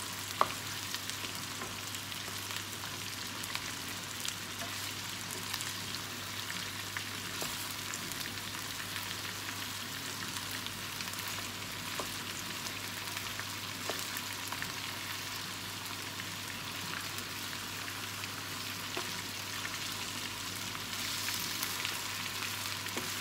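Chicken drumsticks and garlic sizzling steadily in hot oil in a nonstick pan, with scattered small clicks of a spatula stirring and turning the pieces. The sizzle grows louder near the end.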